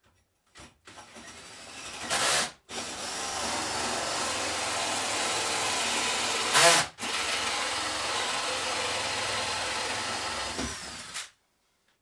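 Cordless drill driving a hole saw through wood, boring a hole. It starts with a short burst near 2 s, then cuts steadily, stops briefly near 7 s, restarts and stops about 11 s in.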